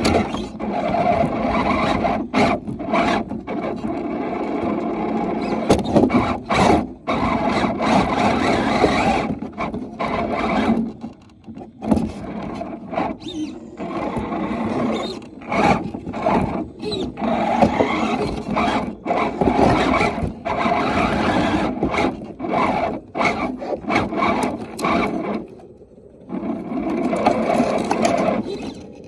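RC scale crawler's electric motor and gears whining in stop-start bursts as the truck crawls through brush, with twigs and branches scraping and rubbing against the tyres and body. Two longer pauses come about a third of the way in and near the end.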